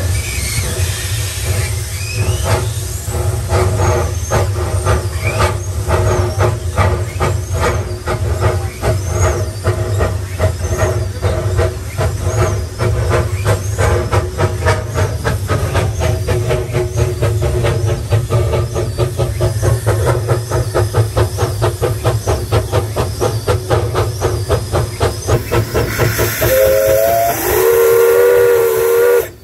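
Two-foot gauge Hudswell Clarke steam locomotive working hard, its exhaust beating in a fast, steady rhythm over a low rumble. Near the end its steam whistle sounds for about three seconds, rising in pitch and then held.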